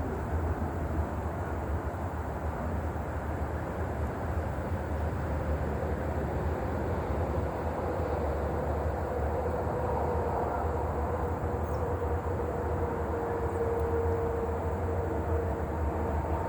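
Steady low rumble, with a faint engine drone coming up about halfway through.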